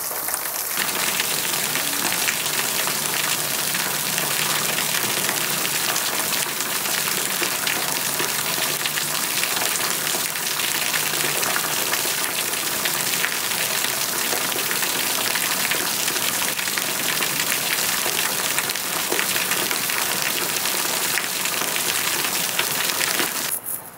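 Waterfall: a steady, loud rush of falling water. It swells about a second in and cuts off abruptly near the end.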